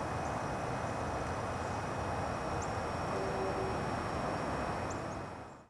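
Steady outdoor background rumble by the railway tracks, with a few faint high chirps, fading out at the end.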